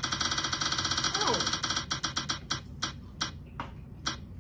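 Spin-the-wheel phone app ticking through the phone's speaker as the wheel spins: very rapid clicks that slow and space out as the wheel coasts to a stop, the last tick about four seconds in.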